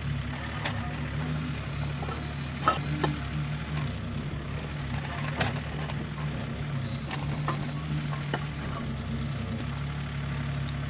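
Hands scraping and brushing loose grit on a bed of lifted paving slabs, with scattered small clicks of stones, over a steady low engine hum.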